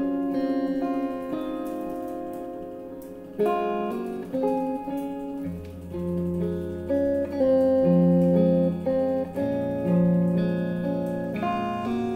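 Instrumental music: a guitar picks a run of single notes while low steady tones sustain beneath it, the deepest entering about halfway through.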